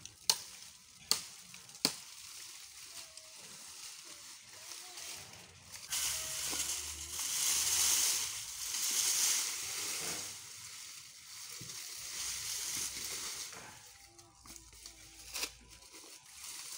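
A hammer strikes a wooden pole three times in the first two seconds. Then dry brush and vines crackle and rustle loudly as they are pulled and dragged, loudest in the middle. A few sharp snaps come near the end.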